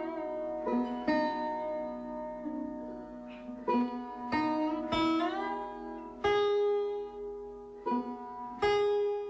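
Instrumental background music: a plucked string instrument playing a slow melody of single notes, several of which bend up or down in pitch.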